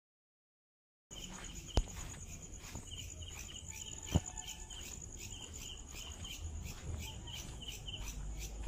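Digital silence for about the first second, then crickets at night: a steady high trill with a second insect chirping in quick runs of about three pulses a second. Two sharp clicks, about a second in and again near halfway, are the loudest sounds.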